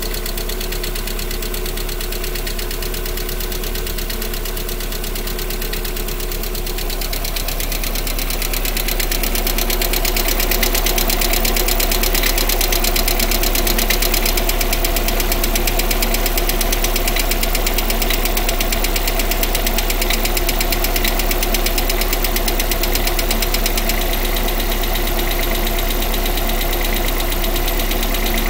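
Lada Priora four-cylinder petrol engine running with a fast, even ticking knock that appeared after a long period of standing; the owner points to the hydraulic lifters or the piston group as the cause. The engine gets louder about eight seconds in.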